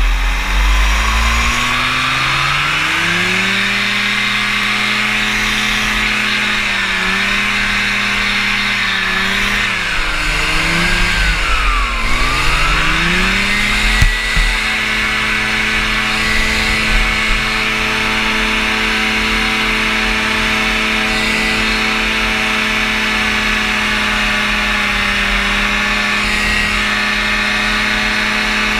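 Rotax engine of a powered parachute opened up for takeoff, its pitch rising over the first few seconds. Between about six and thirteen seconds in the revs waver and dip, lowest around twelve seconds. They then climb back and hold steady as the craft climbs out.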